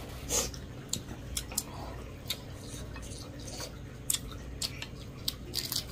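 Eating rice and curry by hand from ceramic plates: fingers squishing and mixing the food, with light, irregular clicks against the plates and chewing.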